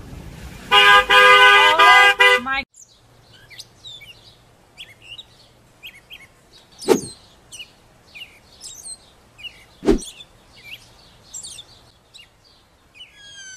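A car horn blares in one steady blast of about two seconds. Then birds chirp, with two sharp knocks about three seconds apart.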